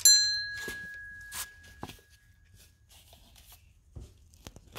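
A metal tool or part knocks against metal on the engine and rings with a clear tone that fades over about two to three seconds, followed by a few light clinks and rubs.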